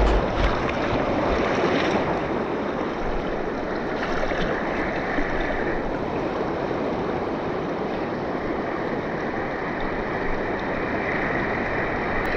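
Steady rush of river water flowing past.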